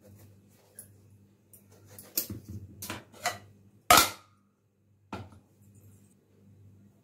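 A small kitchen knife cutting through a guava, with sharp knocks of the knife and fruit against a stone countertop; several clicks come in the middle and the loudest knock about four seconds in, another about a second later, over a steady low hum.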